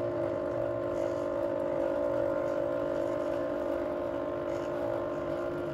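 Sixi 3 robot arm's stepper-motor joint actuators, with belt and gearbox drives, running together as the arm moves back to its home position: a steady mechanical whine with several even tones that starts abruptly just before and holds level throughout.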